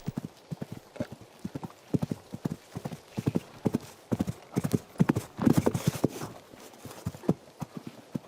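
Hooves of several horses galloping on open ground: a rapid, irregular run of dull hoofbeats, with a denser, louder flurry about five and a half seconds in.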